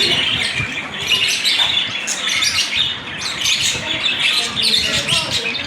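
A crowd of caged lovebirds and other small parrots chattering, with many high chirps and squawks overlapping without pause.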